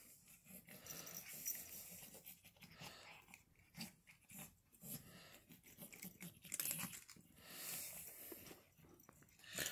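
Cats chewing and crunching small bits of food off a carpet, heard as faint, irregular crunches and clicks.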